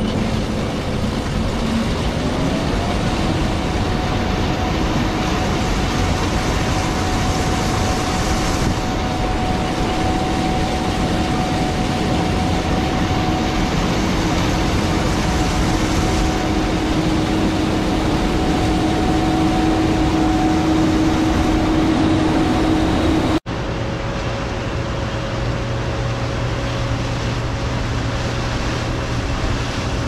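Steady machine running noise with a humming tone that rises in pitch about two seconds in and then holds. The sound changes abruptly about 23 seconds in to a lower, steady hum.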